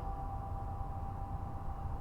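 The last note of a downtown tower bell dying away: a single faint hum slowly fading over a steady low rumble of outdoor background noise.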